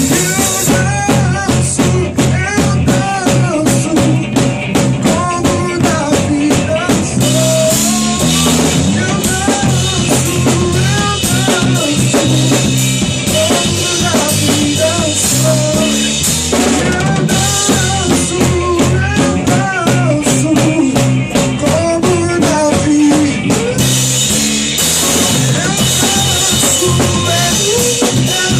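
Live band playing an instrumental passage of an upbeat gospel song, driven by a drum kit with bass drum, snare and rimshots over bass and melodic instruments.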